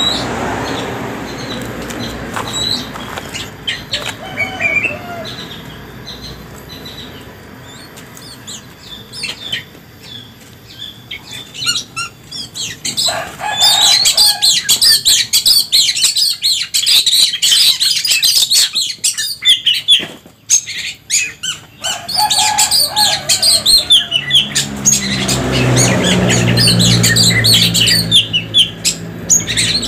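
Caged oriental magpie-robins (kacer) giving short sharp chirps and calls, with bursts of wing flapping in the cages; the calling gets busy about halfway through, and a low steady drone joins near the end.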